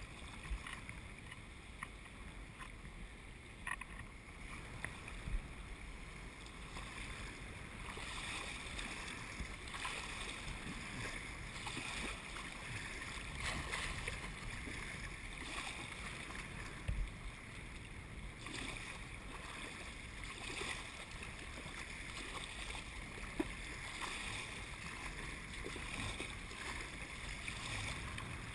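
Choppy river waves slapping and splashing against a kayak's hull, with wind noise on the microphone; the water and wind noise grows louder about eight seconds in.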